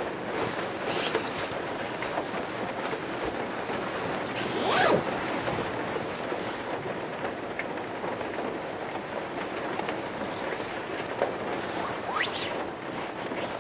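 Steady rain falling on the roof of a VW camper van, heard from inside, with a few swishing rustles of bedding as someone shifts under it, the loudest about five seconds in and another near the end.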